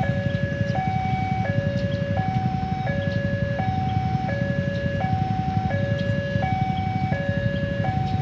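Railway level-crossing warning alarm sounding, two notes alternating high and low, each held about three-quarters of a second, repeating steadily over a constant low rumble.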